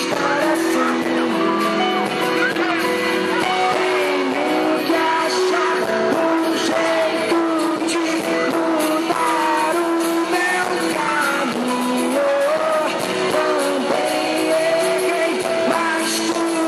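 A pop-rock song with a singing voice and guitar, playing steadily throughout.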